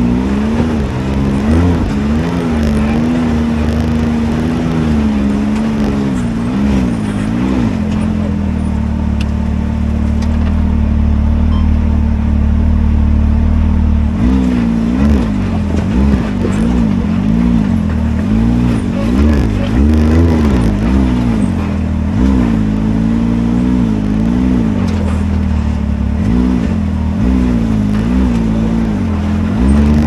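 Can-Am Maverick X3's turbocharged three-cylinder engine worked on and off the throttle over rocky ground, its pitch rising and falling again and again. It holds a steadier note for several seconds about ten seconds in.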